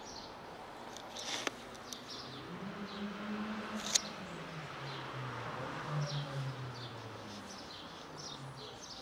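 Small birds chirping in short, repeated high calls. Through the middle a low hum rises and then falls in pitch, and there is a sharp tick about four seconds in.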